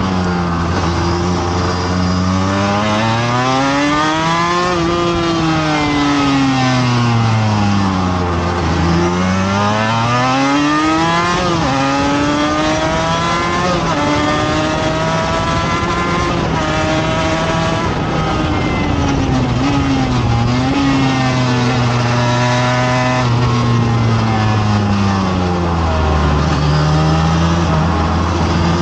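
Race motorcycle's engine heard from on board at track speed, the revs climbing and falling again and again, with a run of quick upshifts in the middle and a long fall in engine speed under braking later on, over steady wind noise.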